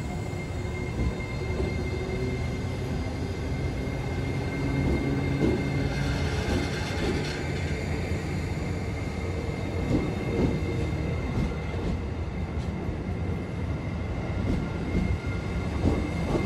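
JR East E653 series electric multiple unit pulling slowly out of the station and gathering speed.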